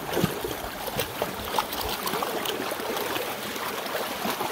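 Several people wading through shallow floodwater, feet splashing and sloshing, with many small splashes over a steady wash of moving water.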